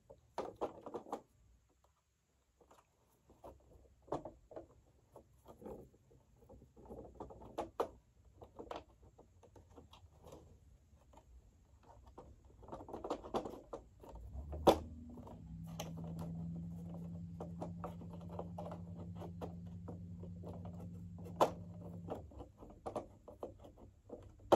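Plastic and metal parts of a Eureka upright vacuum being handled and fitted together: scattered light clicks, knocks and rustles. About two-thirds of the way through, a low steady hum starts with a sharp click and stops a couple of seconds before the end.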